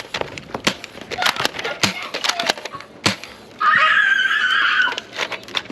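Rapid sharp clicks and knocks, with a shrill held scream about three and a half seconds in that lasts just over a second.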